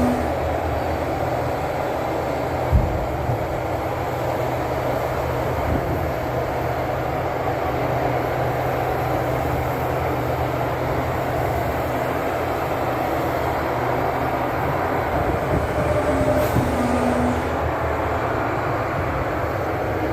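Steady heavy rumbling and grinding, like a train rolling, from a barge being launched, with a single sharp thump about three seconds in.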